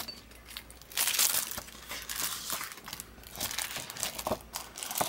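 Clear plastic sleeve of a clear stamp set crinkling as it is handled, in a run of irregular crackles.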